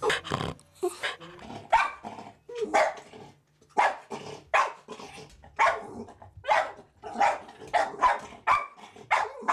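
West Highland White Terrier barking at rabbits on the television: a long run of sharp, separate barks, roughly one a second and sometimes quicker.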